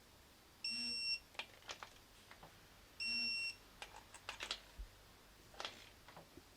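Digital torque wrench beeping twice, each beep a steady high tone lasting about half a second, signalling that a cam cap bolt has reached its set torque. Short light clicks come between the beeps.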